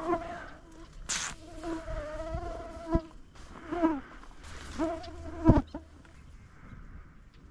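Mosquitoes whining close to the microphone in several short passes, each buzz bending up and down in pitch as it flies by. A few soft knocks come between them, the loudest about five and a half seconds in.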